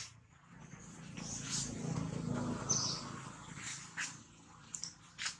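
Scattered short, high-pitched animal chirps and squeaks over a low murmur that swells and fades between about one and three and a half seconds in.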